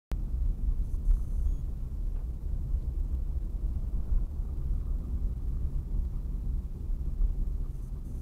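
Steady low rumble of a car driving, heard from inside the cabin: engine and tyre noise. It cuts in abruptly just after a moment of silence.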